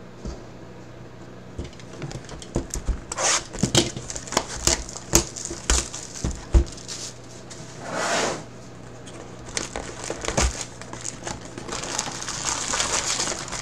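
Plastic shrink wrap crinkling and tearing as it is stripped off a sealed box of trading cards, in a run of sharp crackles. Near the end, a denser crinkle of foil card packs being handled in the opened box.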